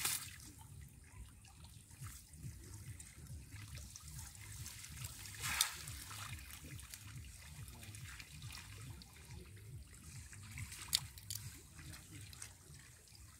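Water trickling and dripping over a low steady rumble, with a few sharp clicks and a brief louder rush of water about halfway through.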